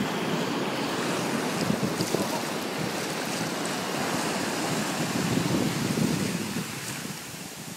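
Ocean surf breaking and foamy whitewater rushing up the shallows, a steady noisy wash with wind on the microphone. It eases off near the end.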